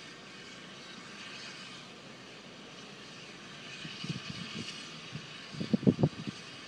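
Steam locomotive hissing steadily, with a few low thumps about four seconds in and a louder cluster of low thumps near the end.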